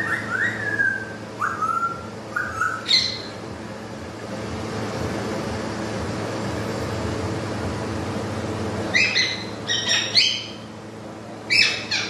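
A parakeet gives four short whistled notes at the start, then harsh squawking calls about three seconds in and again in a cluster near the end. Under the calls runs the steady whoosh of an air cooler's fan.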